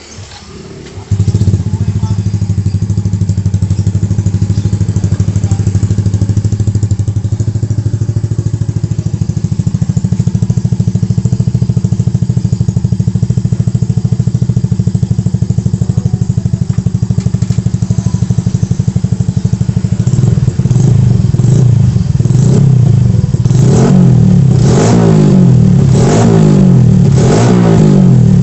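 Bored-up Honda motorcycle engine running on a Yamaha fuel-injection setup, starting about a second in and idling steadily. Over the last several seconds it is revved in a string of short throttle blips, about one a second.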